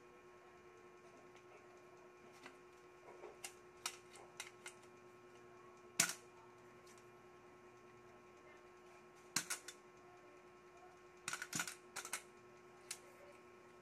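Scattered light clicks and knocks of hard plastic and metal copier parts being handled as a gear and bushing are worked onto the end of a roller. The sharpest click comes about six seconds in, and a quick cluster of clicks comes near the end, over a faint steady hum.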